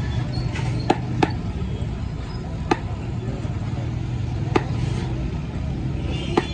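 Knife and plates knocking while beef is cut and served from a tray of pulao: five sharp, irregularly spaced knocks over a steady low background hum.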